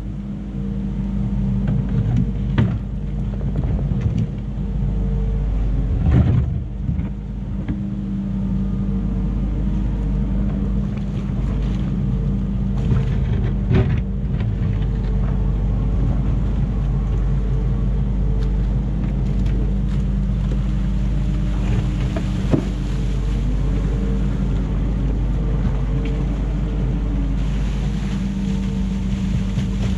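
Kubota SVL75-2 compact track loader's diesel engine running steadily under load while it pushes dirt with its bucket, with a few sharp knocks and clanks of material on the bucket. In the second half the engine pitch rises and falls a few times.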